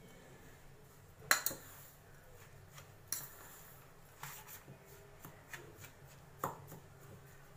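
A steel spoon scraping and clinking against a stainless steel bowl as powdered sugar is stirred into crumbly mawa. The clinks are irregular, the sharpest about a second and a half in, with a low steady hum underneath.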